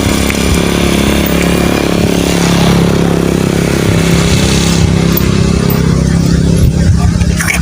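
A small engine running steadily and loudly close by, its pitch lifting slightly for a few seconds in the middle.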